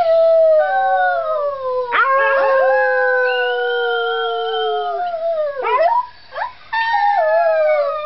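Puppy howling: three long howls, each sliding down in pitch, with a few short yelping notes between the second and third.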